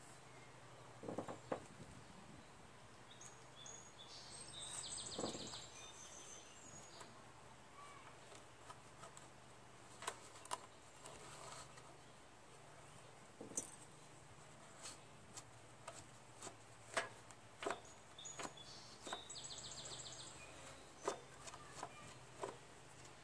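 Quiet hand-work on a lawn mower's rear-wheel drive: scattered light clicks and taps of small metal parts and a rag wiping the dirty gear hub, over a low steady background hum.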